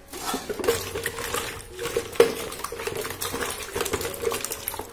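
Kitchen containers being handled and set down, giving irregular clatter and knocks with one sharp knock about two seconds in, over a faint steady hum.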